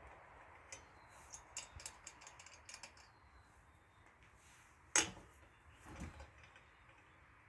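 Scattered light clicks and taps of tools being handled while working on a jacked-up car wheel, with one sharper knock about five seconds in.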